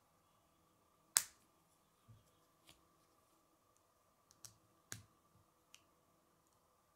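K'nex plastic rods and connectors clicking as they are snapped together by hand. One sharp snap comes about a second in, then a scatter of lighter clicks, with another sharp snap near the end.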